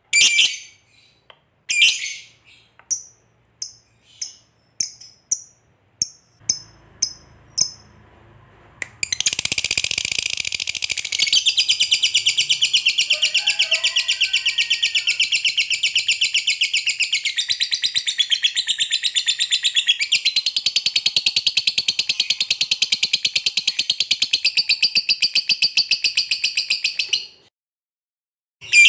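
Masked lovebird giving short, sharp chirps that come closer together. About nine seconds in it breaks into the long, fast, rattling chatter trill (ngekek panjang) and holds it for some eighteen seconds before stopping abruptly.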